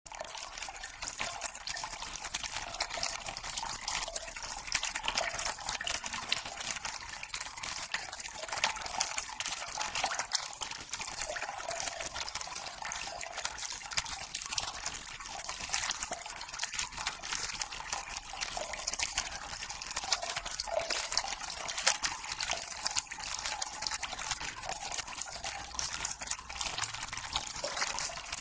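Steady, water-like trickling hiss made of dense fine crackles, with almost no low end.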